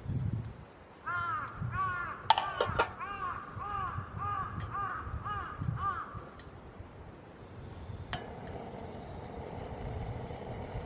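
A crow cawing: a run of about a dozen short, arched calls, about two a second, ending about six seconds in. A few sharp clinks fall among the calls, and a steady outdoor hiss follows.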